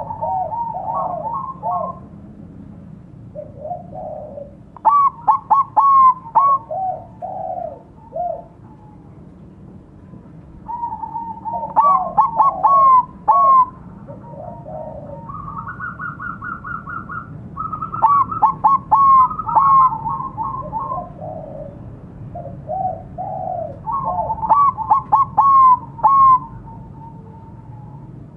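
Bangkok-strain zebra dove (perkutut) singing: about five bouts of quick, clipped cooing notes, each bout a second or few long and separated by short pauses. A faint low hum runs underneath.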